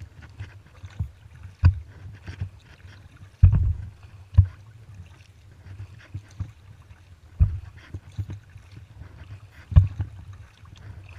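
Kayak paddling on open water: paddle strokes splashing and dripping, with a handful of irregular knocks and thumps over a low rumble of light wind on the microphone.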